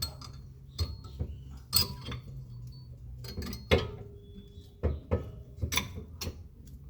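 Metallic clicks and knocks, about seven, spread unevenly, as a brake pad's spring clip is pushed into the slot inside the brake piston; one knock near the middle rings briefly.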